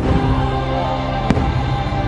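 Fireworks show music playing loudly with fireworks going off: a sharp bang right at the start and another about a second and a quarter in.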